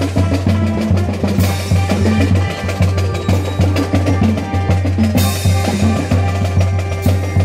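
Brass band playing live, with bass drum and snare drum keeping a steady beat under the sustained brass notes, and bright cymbal-like crashes about a second and a half in and again near the end.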